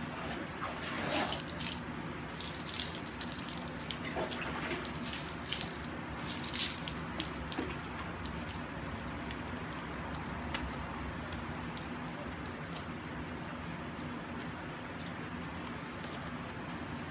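Water running and splashing as soap is rinsed off a dog's coat: a steady rush of water, with scattered louder splashes in the first several seconds.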